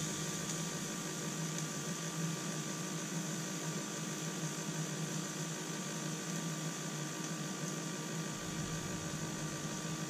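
Electric Power Smokeless Grill running: a steady whir and hiss from its built-in fan, with a faint low hum.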